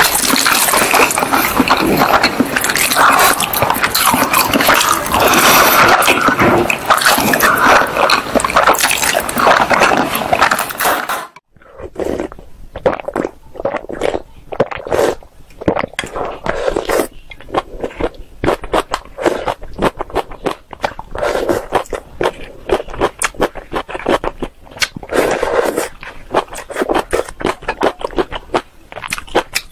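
Close-miked eating sounds: instant noodles and boiled egg chewed and slurped with loud, wet mouth noises. About eleven seconds in the sound drops abruptly to quieter soup sipping, noodle slurping and lip smacks with many short clicks.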